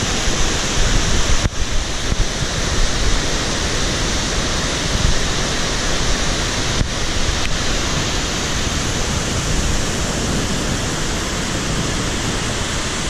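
Steady loud rushing roar of a tall tiered waterfall, with some wind rumble on the microphone. The sound drops out for an instant twice.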